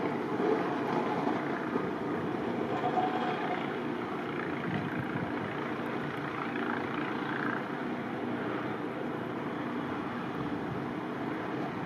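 Steady motor-vehicle engine noise, running evenly without sharp knocks or clear revving.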